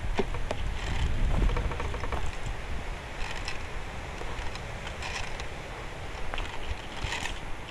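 Footsteps crunching through dry leaf litter and twigs in short scattered bursts, with a low rumble on the microphone in the first couple of seconds.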